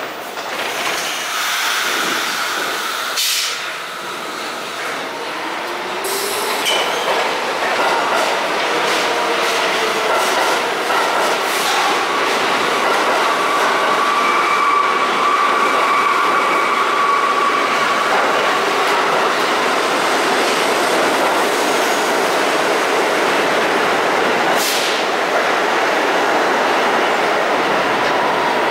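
Vintage R1–R9 'Arnine' subway train pulling out of the station and gathering speed. Its motors whine, rising in pitch as it starts off and then holding steady, while the wheels rumble and clack over the rail joints. A few sharp clicks are heard along the way.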